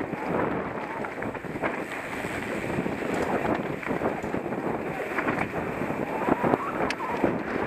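Wind rushing over an action camera's microphone, together with the rattle and knocking of a mountain bike jolting down a rough dirt trail. There are many short knocks throughout, and a couple of sharper clicks about seven seconds in.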